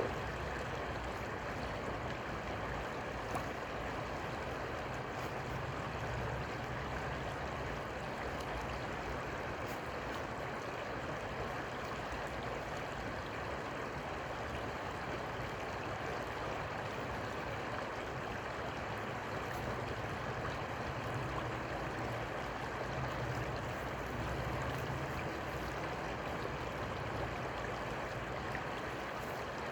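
Steady rushing water noise of a river, with a low hum underneath.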